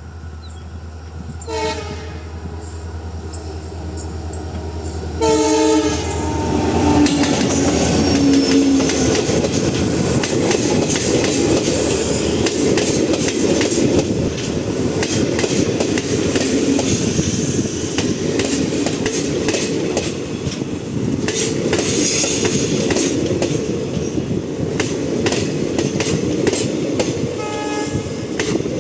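WDP4 diesel-electric locomotive sounding its horn: a short blast about 2 s in, then a loud blast about 5 s in that drops in pitch as the locomotive passes. The train then rolls by with wheels clattering steadily over rail joints, and there is a brief horn blast near the end.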